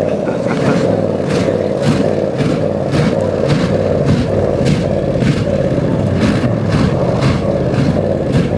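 Classic Buick V8 engine running hard through a flamethrower exhaust. The engine holds a steady sound, broken by sharp cracks about twice a second as fuel ignites at the tailpipe and shoots out flame.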